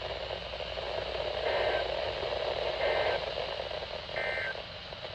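Three short bursts of Emergency Alert System SAME data tones, warbling between two pitches, about 1.3 s apart, over a steady hiss of radio static. Their shortness fits the end-of-message code that closes a weather radio alert.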